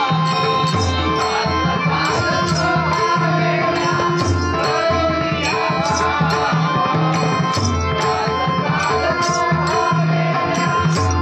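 Devotional bhajan music at a slow tempo. A harmonium holds sustained notes, small hand cymbals keep a steady beat, and a pakhawaj barrel drum plays strokes, with a deep bass beat about every three seconds.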